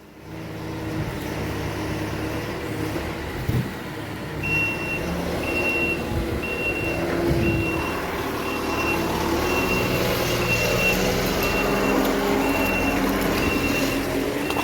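Farm vehicle engine running, and from about four seconds in its reversing alarm beeps steadily, a little under twice a second.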